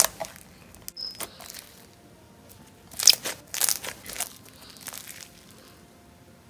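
Slime being kneaded and squished by hand as blue colour is worked in, giving sharp crackles, clicks and crinkly pops in short bursts, loudest about three to four seconds in.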